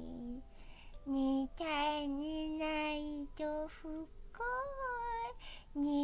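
A voice singing a lullaby of repeated kitten-like "myaa" mews: a run of sung notes with brief breaks, one long note held with a wavering pitch in the middle.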